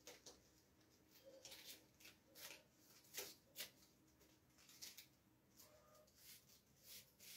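Near silence: quiet room tone with faint, scattered clicks and rustles.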